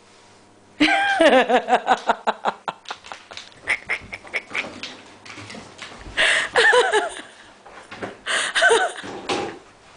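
English cocker spaniel puppy yapping in play: a quick run of high yips about a second in, then shorter barks about six and again about eight and a half seconds in.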